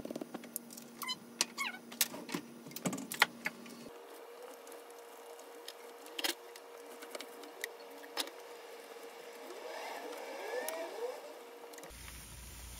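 Cooking at the stove: a metal spoon clinking and tapping against a stainless pan, a quick run of sharp ticks, as salt and ginger powder are sprinkled in. Then bean sprouts are handled into the pan, with a few knocks and brief squeaking about ten seconds in, over a faint steady hum.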